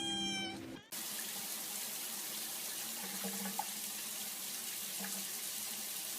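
Water running steadily from a tap in an even hiss. Under a second in, a short held tone is cut off just before the water starts.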